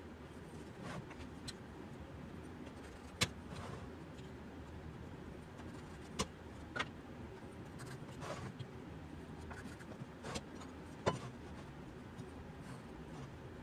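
Hand tools and small wooden pieces handled on a workbench: a handful of sharp clicks and knocks at irregular intervals over a faint, steady low hum.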